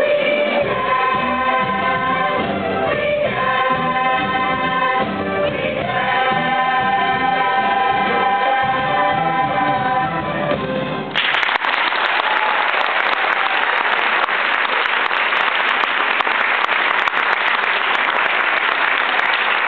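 A cast chorus sings the closing held notes of a stage-musical number over instrumental backing. The music stops abruptly about eleven seconds in, and audience applause takes over.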